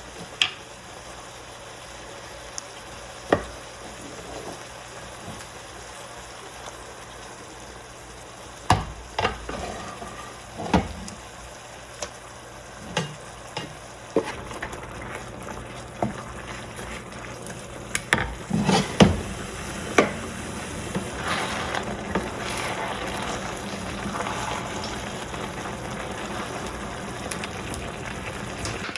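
Food sizzling as it fries in a pan, with scattered knocks and clinks of a utensil stirring against the pan. The sizzle gets louder about two-thirds of the way through.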